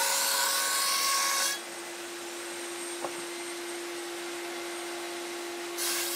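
Router table milling PVC rigid-foam wing ribs: the cutter runs noisily through the foam for about a second and a half, then the motor hums on steadily with nothing against the bit, and the cutting noise starts again near the end.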